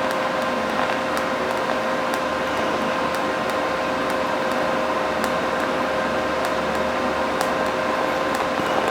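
TIG welding arc burning steadily as a bead is run along the edge to fill pinholes: an even hiss and buzz with a steady hum tone and a few faint ticks.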